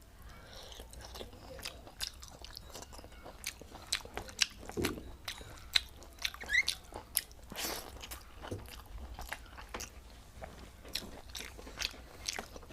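Close-miked mouth sounds of a person eating rice with vegetable curry: irregular chewing, wet smacks and occasional crunches.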